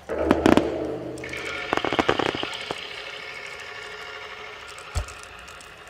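Aerial firework shells bursting in a display: a loud sudden volley of sharp cracks at the start, a second cluster of crackling about two seconds in, and a single deep boom about five seconds in.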